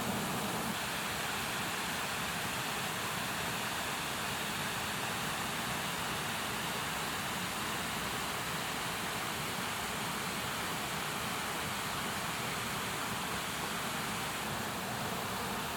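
Raw sausages grilling over a bonfire: a steady, even hiss with no distinct pops or crackles.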